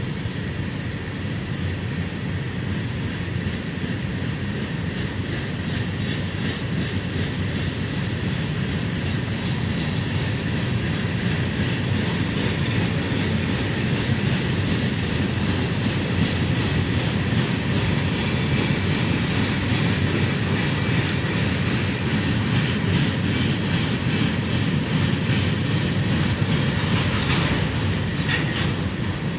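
Freight train's hopper cars rolling past: a steady rumble of steel wheels on rail with a faint high ring, and a brief brighter wheel squeal near the end.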